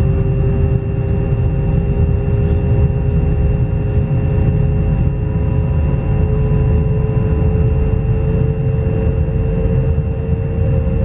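Pesa Dart ED161 electric multiple unit running at speed: a steady rumble of wheels on the track under the whine of its traction inverters and motors. One whine tone rises slowly in pitch, with a steady higher tone above it.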